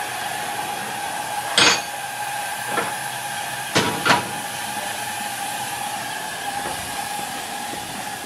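Steady steam hiss with a constant whistling tone from a live-steam locomotive standing under steam. Four sharp knocks cut through it, about one and a half, three and four seconds in, the last two close together.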